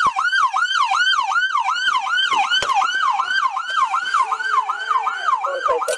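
Police patrol car siren wailing in a fast, even yelp, about three sweeps a second, and cutting off at the very end.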